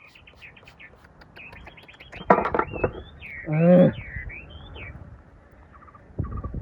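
Birds chirping in quick, high, gliding notes, with a louder, lower call about three and a half seconds in. Knocks sound about two and a half seconds in and again near the end.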